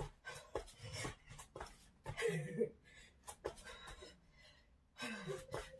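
Feet landing on an exercise mat in quick, irregular taps during plank jacks, mixed with effortful breathing and a short strained vocal sound near the end.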